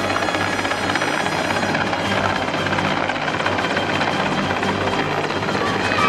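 Mil Mi-8-family helicopter flying low overhead: a steady, rapid rotor beat over the whine of its turbines.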